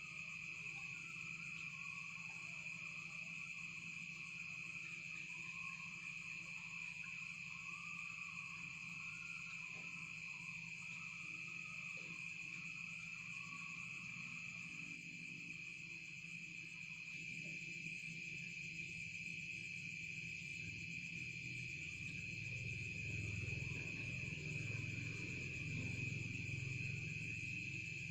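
Insects trilling steadily and high-pitched, a continuous night-time insect chorus. A low rumble swells in during the second half.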